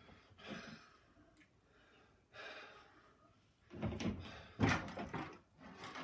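A man breathing heavily as he works, then a cluster of knocks and bumps about four seconds in from handling parts on a plastic kayak.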